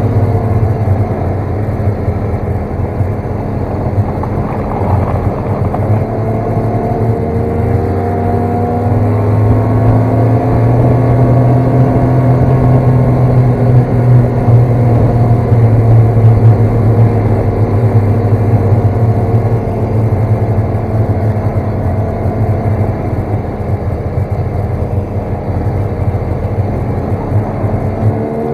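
Snowmobile engine running under way, its pitch rising and falling gently with the throttle; it is loudest about midway through.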